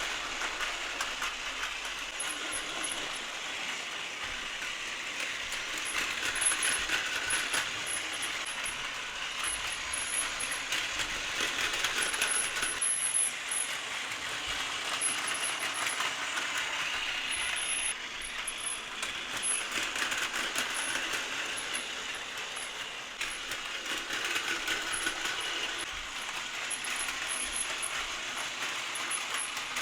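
Battery-powered Plarail toy trains running on plastic track: a continuous rattle of plastic wheels and a small motor, full of little clicks over the rail joints, getting louder and softer several times as the trains pass.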